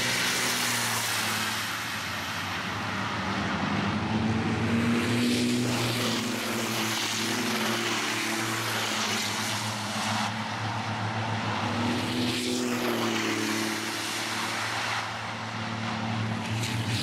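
Several racing trucks pass at speed, their turbo-diesel engines running hard. The engine pitch rises and falls several times.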